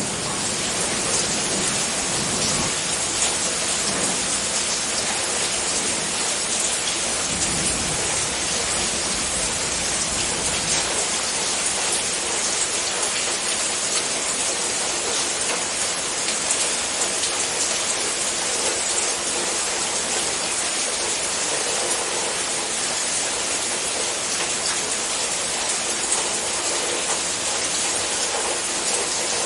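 Steady heavy rain, a dense even patter of drops, with a low rumble underneath for the first ten seconds or so.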